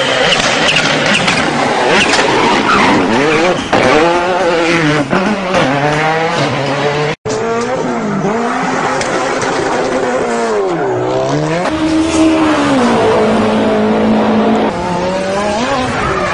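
Race-car sound effects: an engine revving up and down with squealing, skidding tyres. The audio drops out for an instant about seven seconds in.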